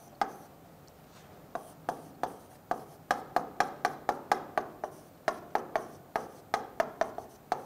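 Marker pen writing on a whiteboard: a quick run of short taps and squeaks as the letters are stroked on, two near the start, then a steady string from about a second and a half in.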